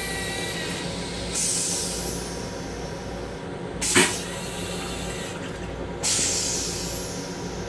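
Flush cycle of the M7 railcar's stainless steel toilet. Rinse water hisses into the bowl from about a second and a half in and fades, a sharp loud burst comes about four seconds in as the bowl empties, and a second spray of water starts about six seconds in and dies away. The train's steady running hum sits underneath throughout.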